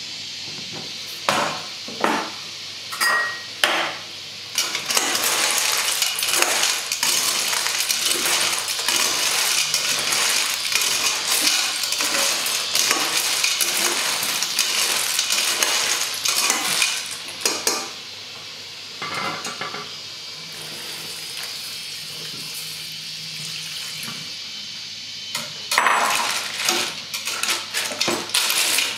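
Metal spatula stirring snails in their shells in a stainless steel pot, the shells clattering against each other and the pot in a long rattling stretch. A few separate metallic clinks come in the first few seconds, it goes quieter past the middle, and the clattering starts again near the end.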